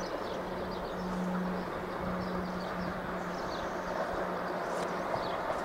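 ZSSK class 363 electric locomotive hauling a passenger train as it comes slowly into the station: a low, steady hum that breaks off now and then over an even rolling noise. Small birds chirp several times.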